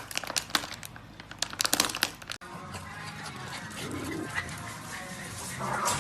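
A rapid run of sharp clicks and crinkles for about two seconds, then an abrupt cut to a quieter stretch of faint, hissy room noise.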